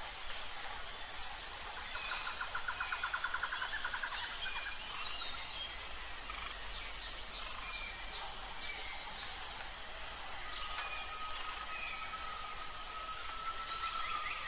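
Outdoor ambience of birds calling and insects shrilling steadily, with a rapid trill a couple of seconds in and a long, level whistled note near the end.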